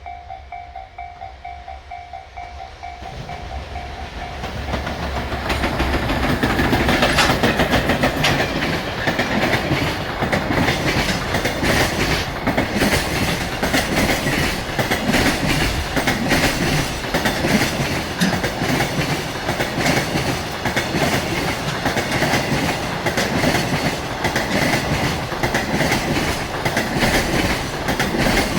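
Japanese level-crossing warning bell ringing, soon drowned out as a JR Freight container train led by two EF210 electric locomotives passes close by. The wheels clatter loudly over the rail joints in a steady rhythm.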